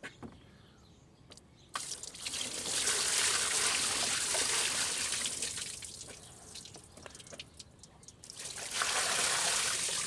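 Hot water poured from a container over the engine bay, splashing onto the coolant reservoir and hoses to rinse off spilled coolant and dye. One long pour starts about two seconds in and tails off, then a second pour comes near the end.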